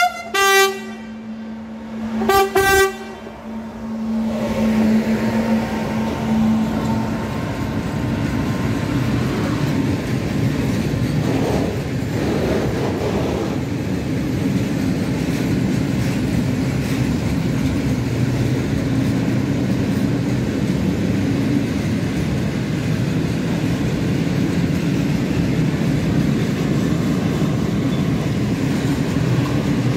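Locomotive sounds two short horn blasts about two seconds apart. A freight train of covered hopper wagons then passes close by with a steady rumble of wheels on rail.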